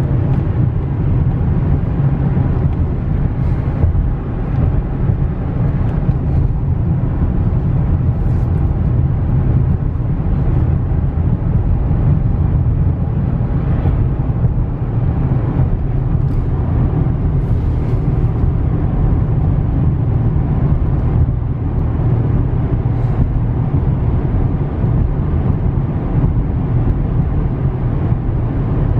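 Steady engine and road noise of a 2016 GMC Canyon pickup cruising at speed, heard from inside the cab, with a low rumble and no change in pitch.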